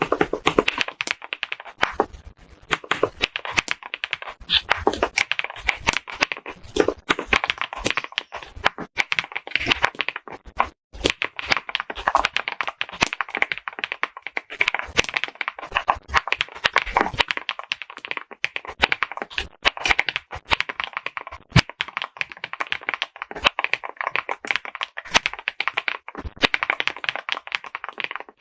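Fast typing on a newly assembled mechanical keyboard: a dense stream of crisp key clicks, with a brief pause about eleven seconds in.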